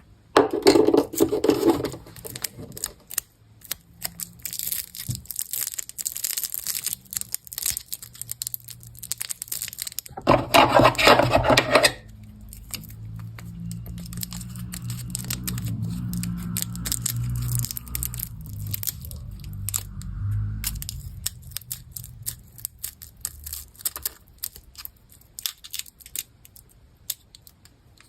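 Candy wrappers being torn open and crinkled, with many small crackles and clicks. Two loud rips come about a second in and again around ten seconds in, and a low rumble runs for several seconds in the middle.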